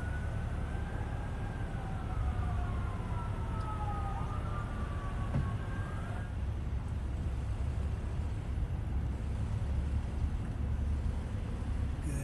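Steady low rumble of a car driving, with a faint emergency siren wailing slowly, its pitch falling and then rising, until it fades out about halfway through.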